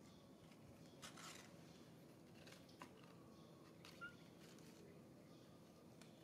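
Near silence: a faint steady background hum with a few soft ticks and scuffs.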